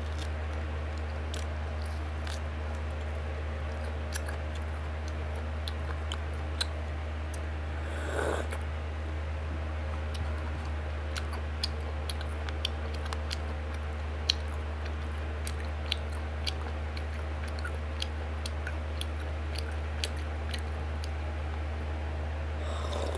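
Close-up eating by hand: scattered small clicks and mouth smacks of chewing rice and pork, with fingers working food on a metal plate, over a steady low hum. A brief louder noise comes about eight seconds in, and a short sip from a bowl near the end.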